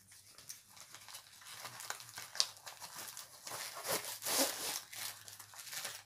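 Plastic and paper packaging rustling and crinkling as it is handled and folded, a run of irregular crackles.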